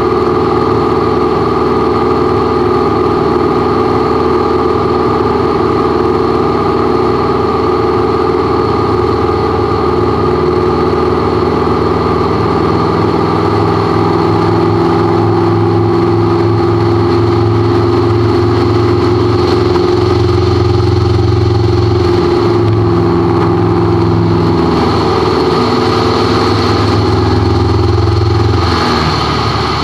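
Light aircraft engine and propeller droning steadily in flight, heard inside the cockpit. Its note shifts a few times in the second half, with a change near the end.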